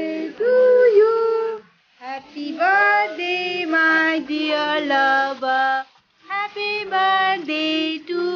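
A song with a child's and a woman's voices singing a melody in held notes, in phrases broken by two short pauses.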